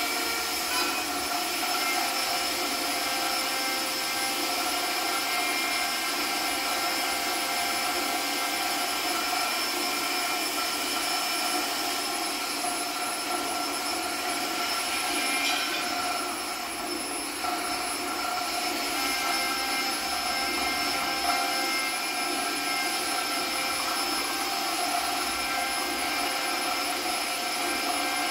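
Steady electronic drone of dense hiss layered with several sustained high ringing tones, from a live experimental sound performance with small metal tins and objects. The hiss thins briefly a little past the middle.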